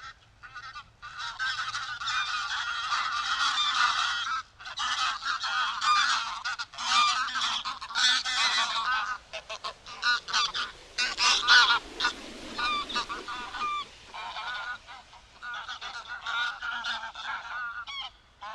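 Greylag geese honking and calling, many overlapping calls at once, denser in the first half and more broken later.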